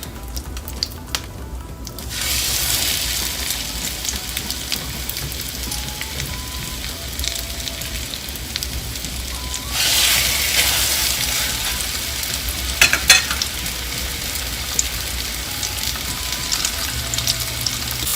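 Breaded chicken frying in hot oil in a pan, a steady sizzle that grows louder about two seconds in and again about halfway through, with a few sharp clicks.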